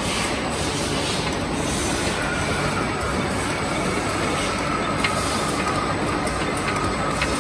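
Rotary cube-pressing machine running: a steady, dense mechanical clatter with a faint high whine and a couple of sharp clicks in the second half.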